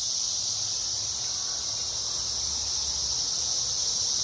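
A chorus of cicadas droning steadily and without a break, high-pitched, swelling slightly toward the end.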